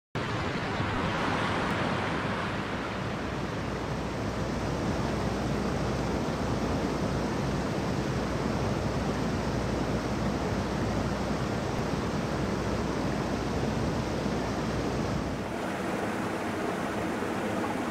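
Steady rush of a mountain stream's flowing water, a constant even noise. The deep rumble drops away about fifteen seconds in, leaving a lighter rush.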